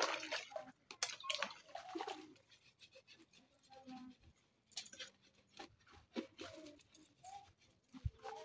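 Plastic cups and dishes being hand-washed in a plastic basin of water: irregular splashing and scrubbing, with light knocks of plastic, busiest in the first couple of seconds.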